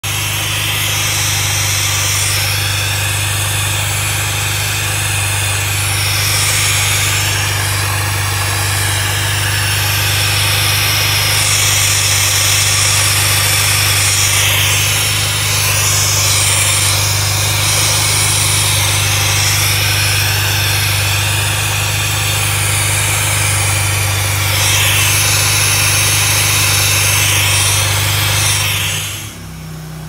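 A 2004 Mini Cooper S (R53) engine running with a loud, steady noise from under the intercooler: a low hum with a hiss on top that shifts in strength. The owner guesses it comes from a line that has come off the fuel pressure regulator. The sound drops away sharply near the end.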